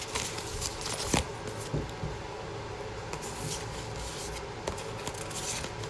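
Quiet room tone with a low hum and a few light clicks and rustles of handling, the sharpest click about a second in.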